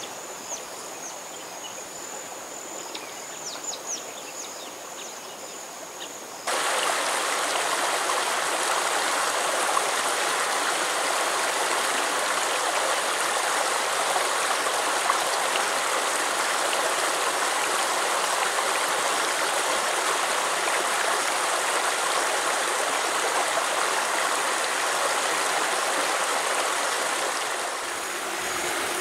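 Small rocky mountain stream rushing over rock slabs: a steady, loud rush of water that cuts in abruptly about six seconds in and fades near the end. Before it, a quieter stretch with an insect's steady high-pitched trill.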